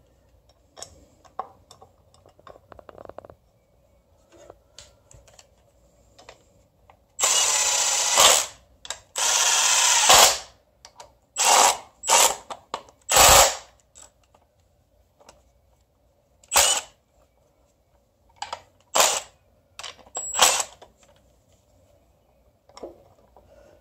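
Milwaukee cordless impact wrench running the motor mount bracket bolts into a Honda V6 block. It gives two runs of about a second each, then a string of short bursts as the bolts are snugged down. Before that come faint clicks of bolts being started by hand.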